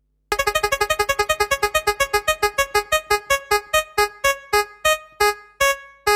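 Electronic keyboard music: a quick run of short repeated notes that gradually slows down to a few widely spaced notes.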